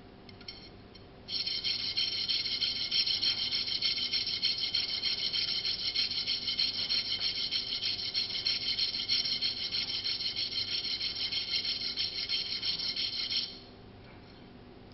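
A muzzle-device crush washer rubbed quickly back and forth on a flat metal file, a fast, continuous rasping that starts about a second in and stops shortly before the end. The washer is being filed thinner so the flash hider tightens down at the right rotation.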